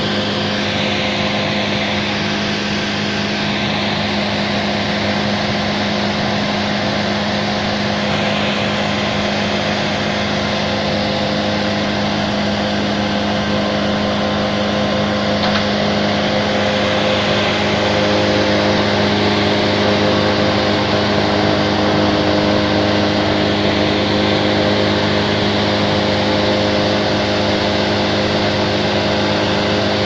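Bandit wood chipper's engine running at a steady speed, a continuous even hum that grows slightly louder about halfway through.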